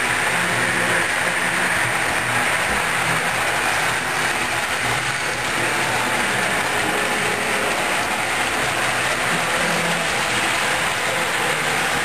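HO scale model train running on the layout's track, a steady whirr of motor and wheels on the rails.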